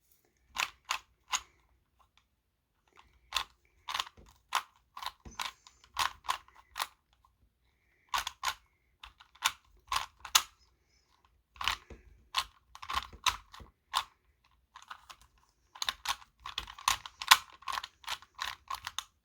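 Plastic clicking and clacking of a Rubik's brand 3x3 cube being turned by hand, in quick irregular runs of turns with brief pauses between them, busiest near the end.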